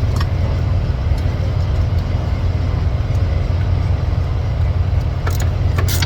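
Semi-truck diesel engine idling, a steady low rumble, with a few light clicks near the end.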